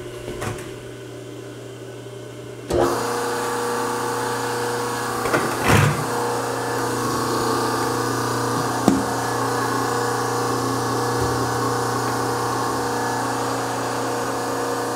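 Hydraulic power unit of a three-phase Whitney punch press switching on about three seconds in and running with a steady motor-and-pump hum. A few short knocks and clicks come over it.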